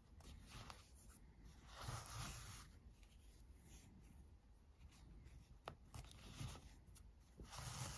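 Faint rustle of yarn being drawn through crocheted fabric while an ear is whip-stitched on with a yarn needle, with two soft swishes of the yarn pulling through, about two seconds in and near the end.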